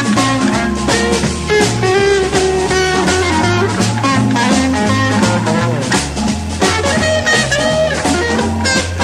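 A live rock band playing, with electric guitar over bass and drums and a steady beat.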